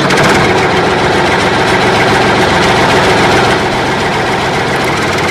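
Tractor engine sound effect idling steadily, a rapid even beat laid over a toy tractor.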